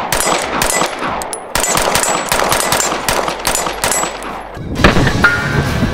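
A compensated semi-automatic pistol fired in a rapid string of shots, sharp cracks following one another closely. Near the end, music comes in over the shooting.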